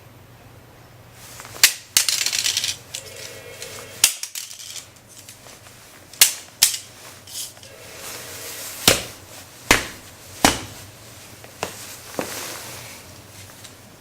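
Hard plastic UMD case taking a series of hard knocks in a stress test: about nine sharp clacks and impacts at uneven intervals, with a brief rattling scrape about two seconds in.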